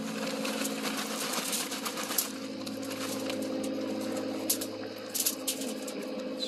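Mesquite wood chips tumbling onto aluminium foil and being stirred by hand: dry chips rattling and foil crinkling, with a few sharp clicks, over a steady low hum.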